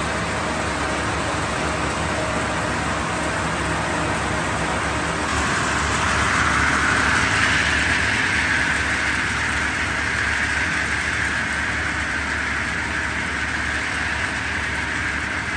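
Plastic film washing line machinery running steadily: a motor hum with a rushing, hissing noise that swells about six seconds in as squeezed film flakes pour from the outlet.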